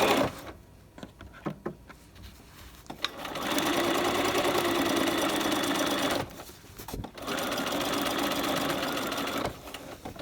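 Sewing machine stitching in two steady runs, the first about three seconds and the second about two, with a short pause between. It is sewing the stitching line around a welt pocket opening, the presser foot following the cut edge of the seam allowance.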